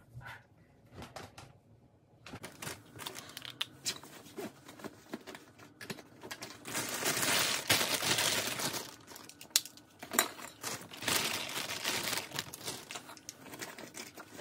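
Plastic bags crinkling and rustling in irregular handfuls while toiletries are packed, starting about two seconds in and loudest in two long stretches in the middle and later on.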